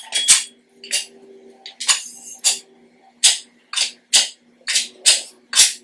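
Sharp metallic clinks of a weight plate knocking against an EZ curl bar's sleeve as it is handled, about two a second and unevenly spaced, with faint background music.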